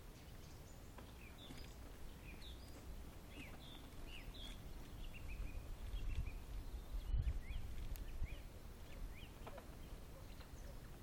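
Branches and leaves brushing against a handheld camera during a walk, with low rustling and handling rumble that swells around the middle. A bird sings short chirping notes in the background throughout.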